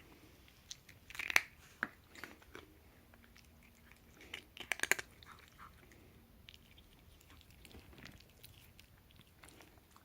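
A cat chewing crunchy treats, with two short bouts of loud crunches, one over a second in and one about four to five seconds in.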